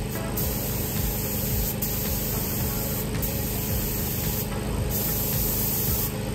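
Gravity-feed paint spray gun hissing as it sprays a car bumper in repeated passes. The hiss drops out briefly several times as the trigger is released between passes.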